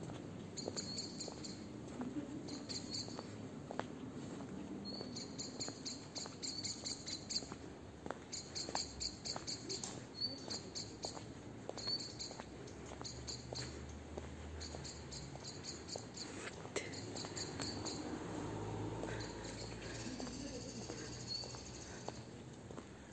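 Crickets chirping in repeated high, rapid pulse trains, each lasting about a second, with faint irregular footsteps on cobblestones.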